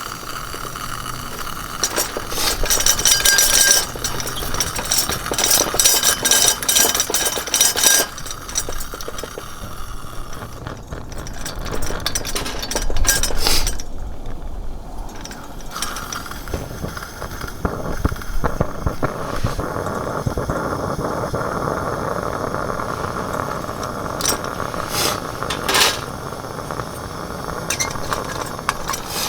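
Hard objects clinking and knocking together as they are handled, many times in the first several seconds and a few more near the end.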